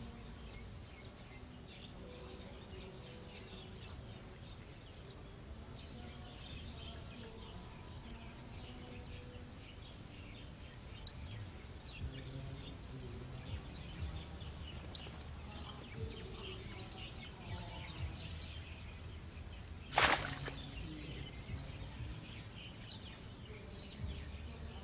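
Quiet rural outdoor ambience with a low rumble, a few faint, very short bird chirps, and one louder brief burst of noise about twenty seconds in.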